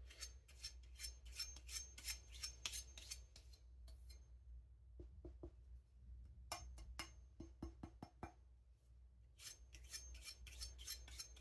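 Thin knife blade stroked again and again across a sharpening surface: a run of quick, faint scraping strokes, some with a thin high ring from the blade. The edge is so thin it rings, which the sharpener takes for the edge flexing. The strokes pause twice.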